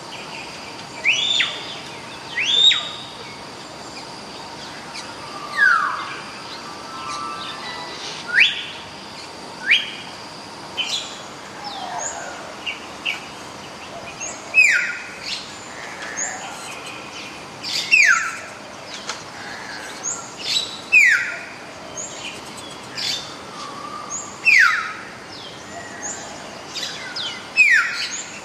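Hill myna calling: a string of loud, sharp whistled notes, many sliding quickly down in pitch, repeated every second or two.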